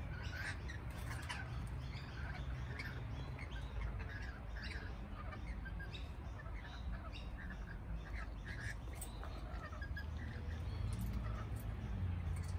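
Lorikeets calling, many short chattering calls scattered irregularly, over a steady low rumble.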